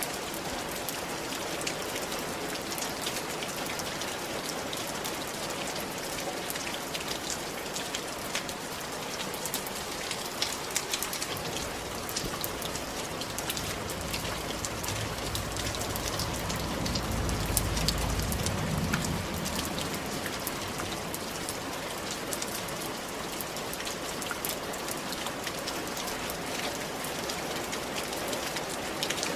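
Steady rain falling on roof tiles: a dense, even hiss with many single drops ticking. A low rumble swells and fades about midway through.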